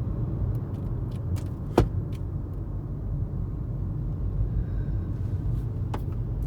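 Car driving along a road, steady low engine and tyre rumble heard inside the cabin. A sharp click or knock sounds about two seconds in, and a fainter one near the end.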